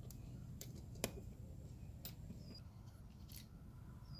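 A few faint sharp clicks of small metal and plastic spincast-reel parts being handled as the retaining clip comes off the shaft and the pieces are separated, the loudest about a second in.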